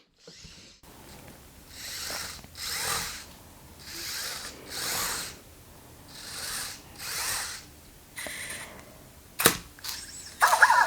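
Anki Cozmo toy robot's small geared motors whirring in short bursts, three pairs of half-second whirs, as it runs a programmed 'act like a winner' celebration. A sharp click comes near the end, followed by the start of electronic chirps.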